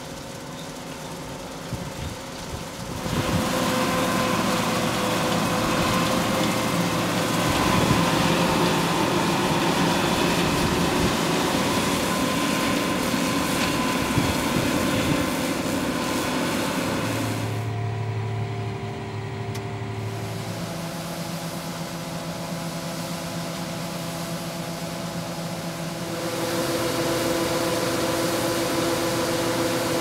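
Combine harvester running while harvesting soybeans, its engine and threshing machinery a steady din. The sound changes abruptly several times, growing louder about three seconds in and again near the end.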